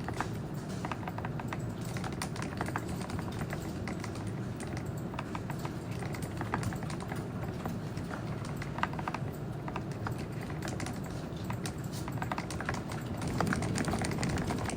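Steady typing on a Groovestone GV10M-8K mechanical keyboard with hand-lubed, low-noise Milky S switches: a continuous run of soft, quick keystroke clicks.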